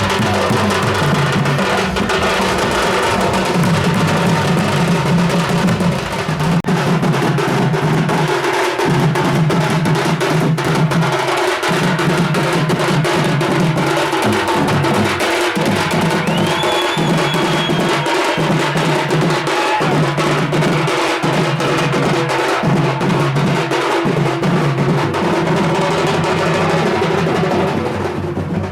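Loud percussion music: dense, fast drumming with a low, pulsing beat, going on without a break.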